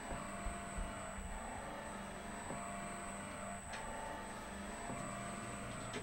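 Steady background hum with a faint high whine, and one soft click a little past halfway.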